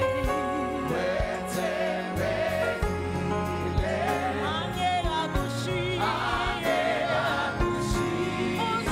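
Live gospel worship song: several singers' voices with a band of keyboard, bass guitar and drum beats.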